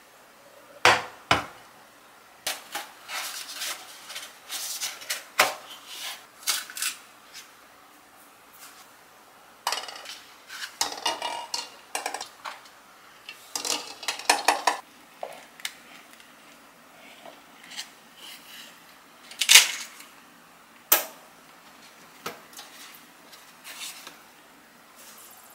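Kitchen handling sounds: an enamel pot being set on a glass cooktop, eggs being put into the pot and a pulp egg carton being handled. They come as a scatter of knocks, clinks and rustles, with two sharper knocks in the second half.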